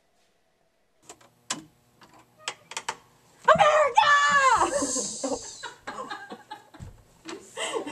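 A few clicks and knocks as the closet doors are opened, then about three and a half seconds in a woman lets out a loud scream of fright that rises and falls in pitch, followed by breathless laughter.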